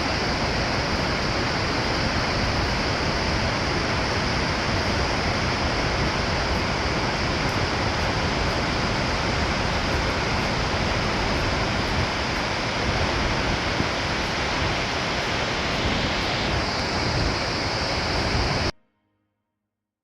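Waterfall rushing, a loud steady roar of falling water that cuts off suddenly near the end.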